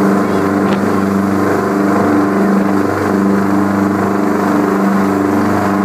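A headboat's engines running steadily under way, with a constant low drone, mixed with the rush of churning wake water behind the stern.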